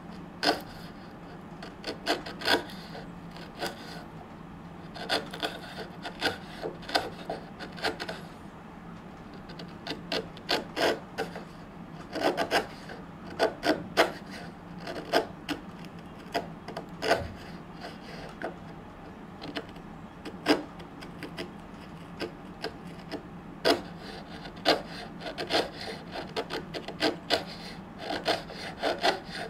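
A bench chisel pushed by hand, paring waste wood from a dovetail joint: short, sharp scraping cuts in quick clusters with short pauses between.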